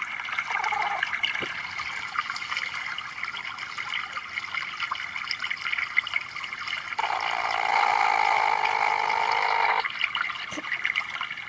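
A platypus clip played back through a device speaker: trickling, running water, and from about seven to ten seconds in a louder, lower steady sound that sounds like someone farting.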